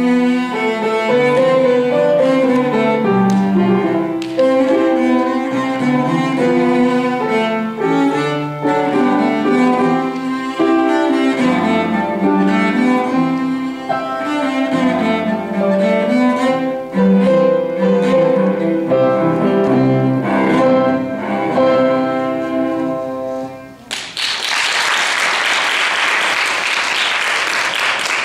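Solo cello playing a bowed melody, note after note. About four seconds before the end the piece finishes and the audience breaks into applause.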